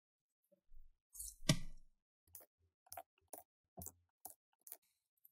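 Electric screwdriver backing out the battery screws of a laptop: a single louder knock, then a run of short, sharp clicks, about two a second.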